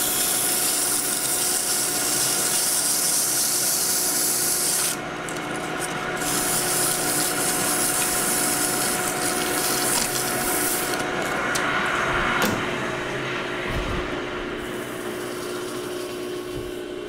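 Hand sanding of an O1 tool-steel bar spinning in a metal lathe: a steady high hiss of abrasive rubbing the bar, broken briefly about five seconds in and stopping about twelve seconds in. The lathe runs throughout with a steady whine. This is a light sanding to finish the freshly turned diameter.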